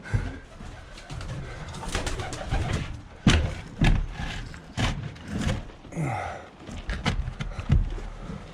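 Domestic pigeons cooing in a small coop, with scattered sharp knocks and clatter as the birds move about.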